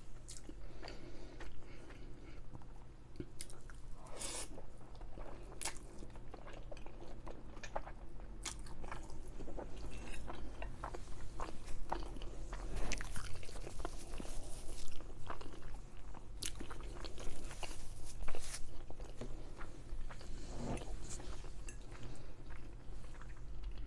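A person chewing and eating soft pasta close to the microphone: irregular wet mouth clicks and smacks, with scattered small knocks that fit cutlery on the plate.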